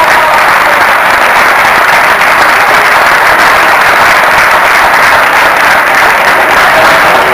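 Audience applauding steadily, a dense clapping with no pauses.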